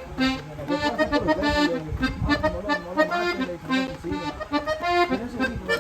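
Norteño music led by an accordion playing a quick run of notes over a bass line.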